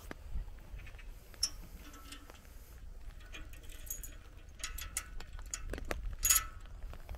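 Raindrops tapping on an umbrella overhead in a few irregular light ticks, the loudest about six seconds in, over a low rumble.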